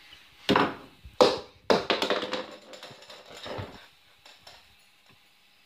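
Kitchen clatter as a fork is grabbed: a few sharp knocks and some rattling in the first two and a half seconds, with a softer knock a little later, then it dies away.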